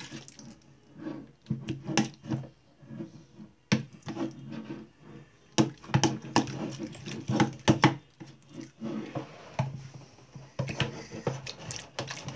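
A metal spoon stirring and scraping thickening PVA-and-borax slime in a plastic bowl: irregular clicks, taps and sticky pops as the slime sets. Near the end, hands begin kneading it.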